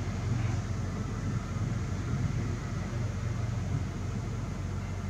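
Steady low rumble with no sharp claps.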